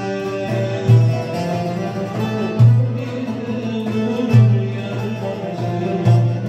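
Turkish folk music played on plucked bağlamas (long-necked lutes) over a darbuka and frame drum, with four deep drum strokes about every second and a half.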